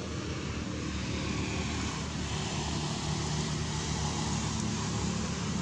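A steady low engine drone under an even background hiss.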